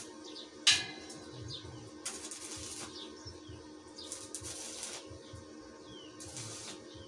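Stick (arc) welder tack-welding a tubular steel window-grill frame: a sharp tap about a second in, then three short bursts of arc crackle, over a steady low hum. Small birds chirp in the background.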